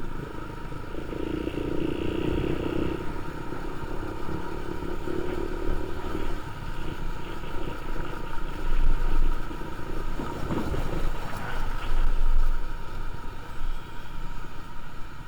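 Motorcycle being ridden: steady engine and road noise, swelling for a couple of seconds a second or so in.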